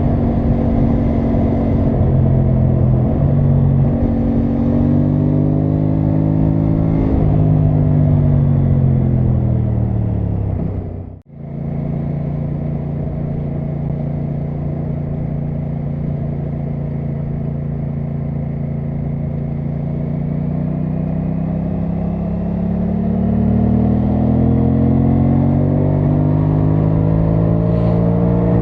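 Aprilia Tuono 660 Factory's parallel-twin engine running on the move. The engine note rises a few seconds in and falls away. The sound cuts out for a moment partway through, then holds steady and climbs again through the revs near the end.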